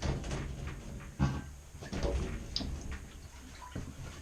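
Knocks and scraping of a porcelain toilet being lifted from the floor and handled, with a few sharp bumps: at the start, about a second in, and again about two seconds in.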